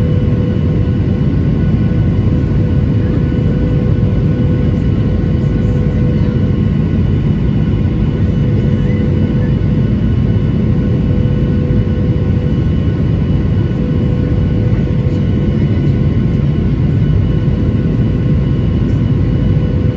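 Boeing 737-900ER in flight, heard from inside the cabin: a constant rush of engine and air noise under a steady hum from the CFM56-7B turbofans, holding an even pitch throughout.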